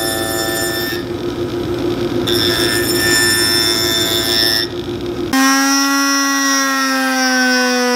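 Shoe-repair machinery running: a steady motor hum and whine with grinding hiss as a boot's leather sole is worked against a finishing machine. About five seconds in the sound changes abruptly to a different machine's motor hum, whose pitch slowly falls.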